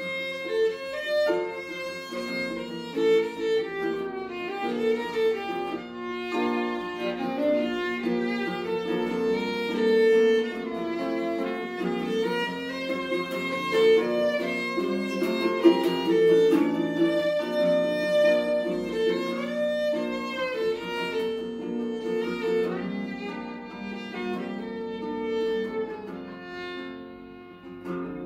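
Violin playing a quick-moving melody over a strummed ukulele accompaniment, in an instrumental passage of a folk-style duo piece.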